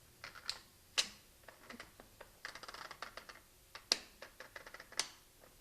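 Jammed shutter mechanism of a Lomokino 35 mm movie camera being worked by hand: a run of small mechanical clicks and rattles, with three sharper snaps about a second in, near four seconds and at five seconds. The mechanism is held back by a plate instead of passing it, so the shutter fails to operate.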